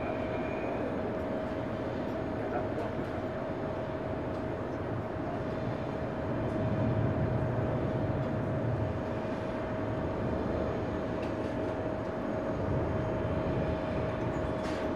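Jet noise from an Airbus A330neo's Rolls-Royce Trent 7000 turbofans in flight: a steady rush with a constant whine through it, swelling a little in the middle.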